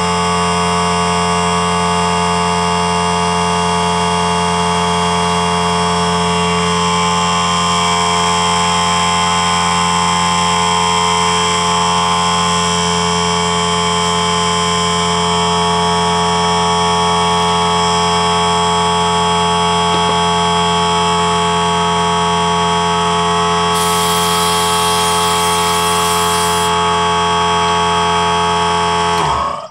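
Electric motor and pump of a shop air compressor running with a steady, loud hum, cutting off abruptly near the end as it reaches pressure after compressed air was used.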